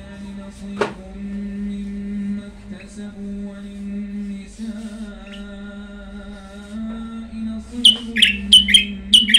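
Caged songbird singing a quick run of bright, falling chirps near the end. Beneath it runs a steady low hum that shifts pitch slightly a couple of times, with a single click about a second in.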